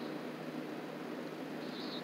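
Steady low hum and hiss of outdoor night background, with one faint high chirp near the end.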